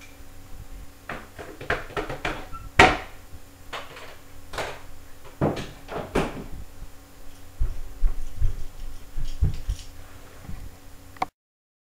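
Scattered knocks, clicks and clatter of household objects being handled in a kitchen, with a few dull thumps late on; the sound cuts off suddenly shortly before the end.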